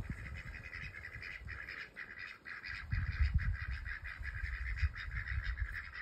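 A flock of Indian Runner ducks calling in a fast, continuous chatter of short quacks. A low rumble joins in about three seconds in.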